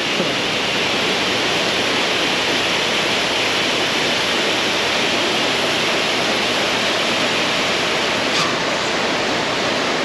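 Cattle soaker sprinklers spraying water over cows at a dairy barn's feed rail, a steady hiss of spray that wets the cows for evaporative cooling in hot weather.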